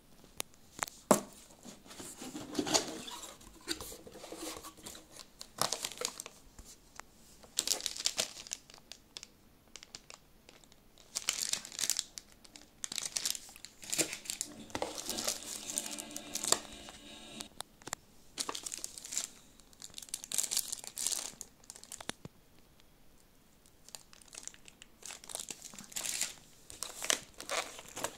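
Motherboard packaging handled by hand: a sharp knock about a second in, then repeated irregular bursts of plastic wrap and bags crinkling, with quiet gaps between them.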